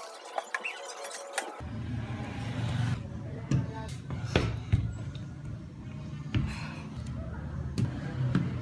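Clicks and light knocks of a tablet in a folio case and a computer mouse being handled and set down on a desk mat. A steady low rumble comes in abruptly about a second and a half in.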